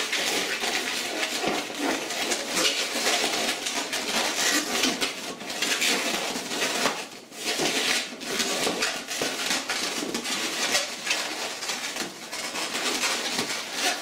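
White latex 260 twisting balloon squeaking and rubbing as hands twist and fold it into bubbles, with a short lull about seven seconds in.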